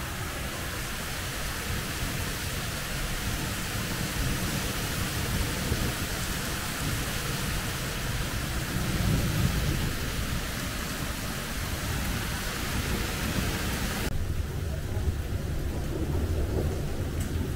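Heavy rain hissing steadily, with a low rumble of thunder that swells about halfway through. About three-quarters of the way through, the rain hiss suddenly turns quieter and duller while the low rumble carries on.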